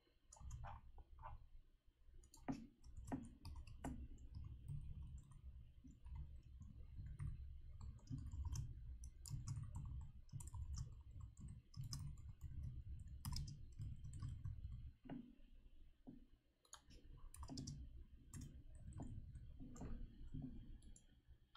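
Faint, irregular clicking of computer keyboard keys being typed, over a low background hum.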